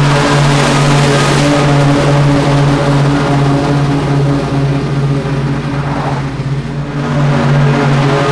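Commercial walk-behind lawn mower's engine running steadily at full throttle while cutting tall grass, easing off slightly for a moment about six seconds in.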